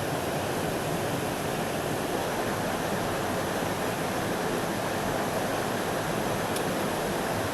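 Steady rush of flowing river water, an even noise with no change, and one faint click near the end.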